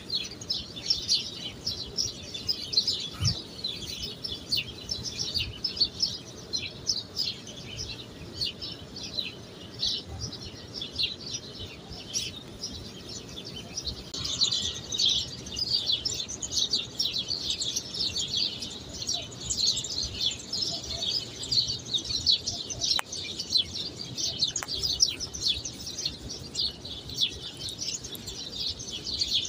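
Many small birds chirping continuously in a dense, high twittering chorus.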